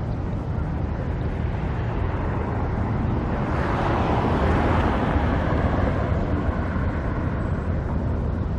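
Road traffic rumble, with one vehicle passing by: its noise swells a little over three seconds in, peaks about a second later and fades away again.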